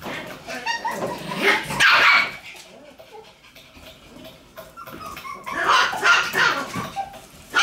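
Shiba Inu puppies barking and yapping in play, in two loud bouts, about a second in and again about five and a half seconds in, with quieter scuffling between.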